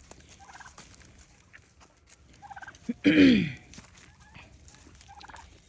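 Domestic turkeys gobbling, a short rattling gobble repeated three times, with one much louder call that drops in pitch about three seconds in.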